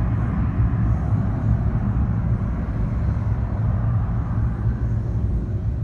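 McDonnell Douglas MD-88's Pratt & Whitney JT8D jet engines rumbling at climb power as the airliner climbs away, the sound slowly fading near the end.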